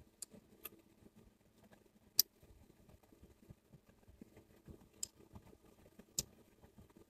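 Quiet room with a few faint, scattered clicks and taps, the sharpest one about two seconds in.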